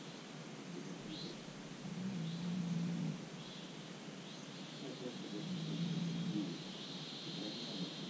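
Open-hillside nature ambience: insects give a fast, steady pulsing buzz and birds chirp briefly several times. A low, hum-like murmur comes and goes every few seconds underneath.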